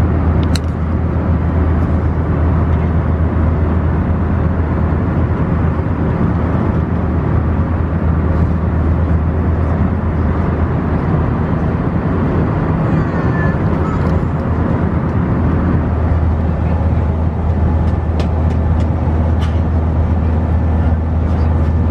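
Steady cabin noise of an Airbus A319 airliner in flight: a constant roar with a strong low hum. A few faint clicks come in near the start and near the end.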